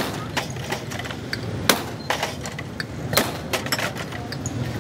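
Glass soda bottles clinking and knocking as they are handled, a string of sharp glassy clicks. The loudest crack comes right at the start, as a bottle is popped open and sprays fizz; another sharp knock follows under two seconds later.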